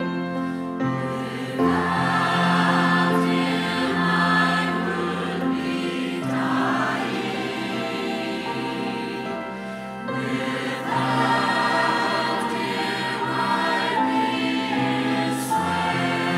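Church choir singing a hymn in parts, with piano accompaniment.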